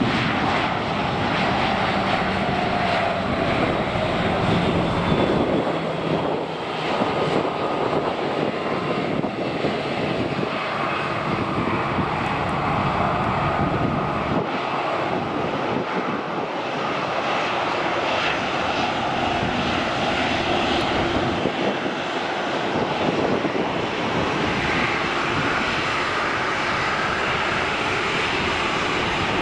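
Jet aircraft engines running: a steady, loud rush of engine noise with faint whining tones that slowly shift in pitch.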